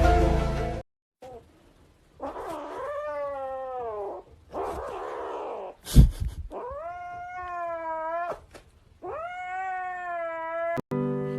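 A cat yowling in four long drawn-out meows, each one to two seconds with wavering pitch, the second one rough and breathy. A sharp knock, the loudest sound, comes about six seconds in. Background music cuts off just under a second in and comes back at the very end.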